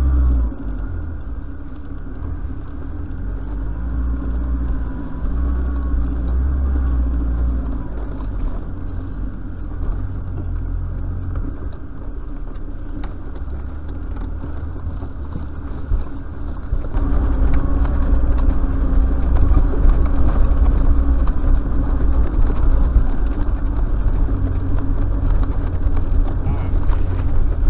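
Four-wheel drive's engine and tyres rumbling steadily, heard from inside the cab while driving slowly cross-country over sand and scrub. The rumble gets louder after about seventeen seconds.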